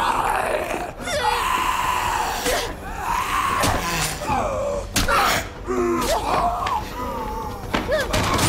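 A violent struggle with an infected attacker: screams, gasps and strained cries, with the infected's open-mouthed shrieks, broken by several hard thuds and slams of bodies hitting things.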